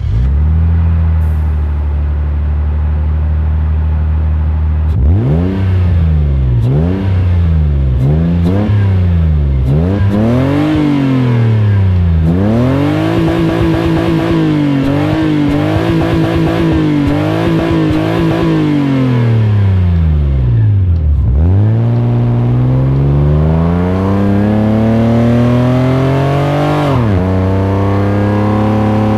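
Nissan Skyline R34's naturally aspirated RB20DE NEO 2.0-litre inline-six idling, then blipped up and down several times in quick succession and held at higher revs. It then drops back and pulls up through the revs under acceleration, with a sudden drop in pitch about three-quarters of the way through, as at a gear change, before climbing again.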